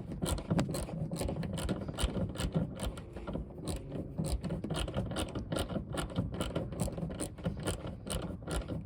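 Hand socket ratchet clicking rapidly and steadily, several clicks a second, as a seat mounting bolt is run in.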